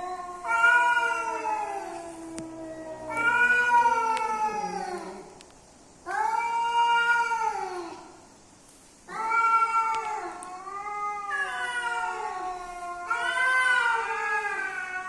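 Cats caterwauling: a run of long, wavering yowls, each two to three seconds, with short pauses between them. These are the mating yowls of a male and female cat together.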